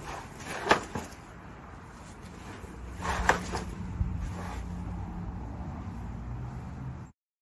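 A horse nosing hay out of a collapsible plastic slow feeder on concrete: sharp knocks and rustles as the flexible feeder is shoved about and tips onto its side, with a low rumble from about three seconds in. The sound cuts off just before the end.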